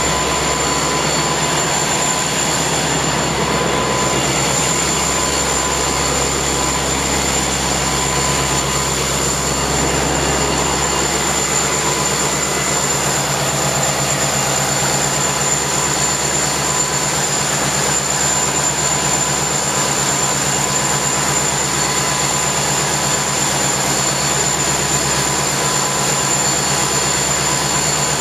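Metra MP36PH-3S diesel-electric locomotive's EMD 16-645 two-stroke diesel running at full throttle (Notch 8) while standing still: a loud, steady drone with a thin high whine over it.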